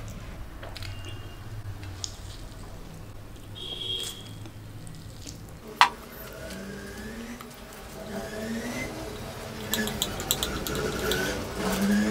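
Close-miked eating of masala instant noodles: wet slurping and chewing with mouth clicks, and one sharp click about six seconds in. In the second half, hummed voice-like 'mmm' sounds run under the chewing, with a cluster of lip smacks near the end.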